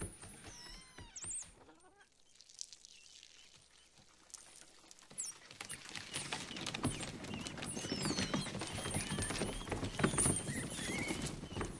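A swarm of rats squeaking and scurrying: a few squeaks near the start, then a thick chorus of short high squeaks and skittering clicks that builds from about five seconds in.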